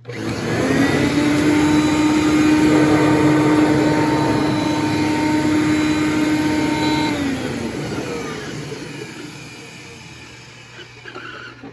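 Hoover Conquest upright vacuum cleaner switched on, rising to a steady whine within about a second, running for about seven seconds, then switched off and winding down with a falling pitch over the next few seconds.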